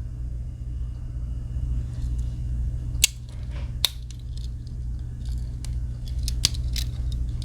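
Small sharp clicks of a Victorinox Huntsman Swiss Army knife's tools being handled: two clear clicks about three seconds in, then a few lighter ticks later on. A steady low hum runs underneath throughout.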